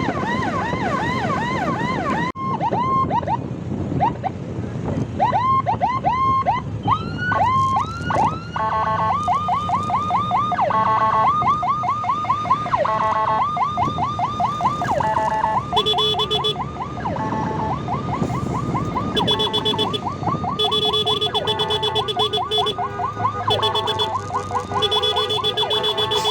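Electronic emergency-vehicle siren sounding over low road and engine rumble. It starts with fast repeating yelp sweeps, breaks off about two seconds in, gives a few single rising whoops, and then from about nine seconds on switches between bursts of fast sweeps and short steady tones. In the second half a second, lower steady tone joins in.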